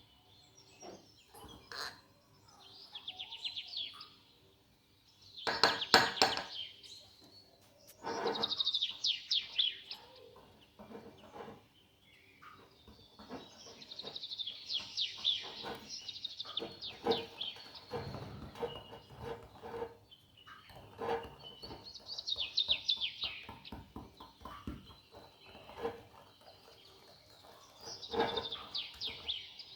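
Birds chirping in short, rapid trilled phrases that repeat every few seconds, with scattered knocks and clinks between them.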